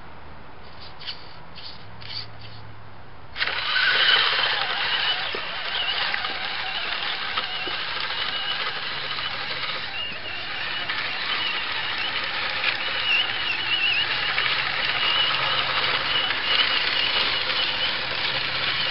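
A radio-controlled scale truck's motor and gears starting up suddenly a few seconds in and running with a steady high whine that wavers in pitch as the truck drives through mud. A few faint clicks come before it.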